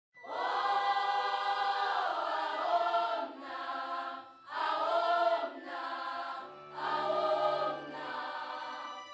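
A choir singing in four long held phrases with short breaks between them.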